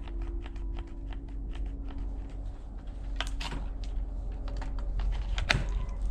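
A quick run of light, irregular clicks from handling the Popoman 20 V brushless cordless drill, whose battery has run flat so that the motor will not run. Under the clicks is a faint steady hum.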